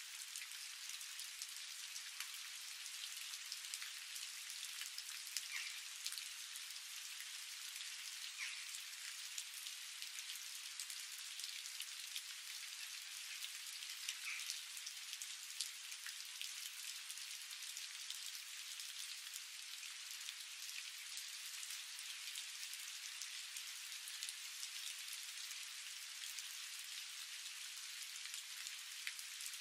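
Steady patter of rain: an even hiss full of fine crackles, with no low rumble.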